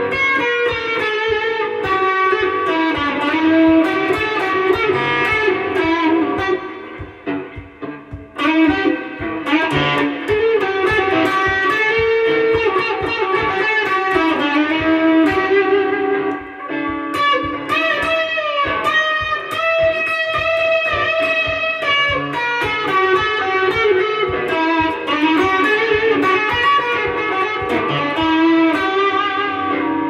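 Strat-style electric guitar with a solid ash body, black walnut top and Tex-Mex pickups, played through a Boss Katana amp with a little overdrive: fast single-note lead lines with some bent, wavering notes. The playing eases off for a moment about seven seconds in, then carries on.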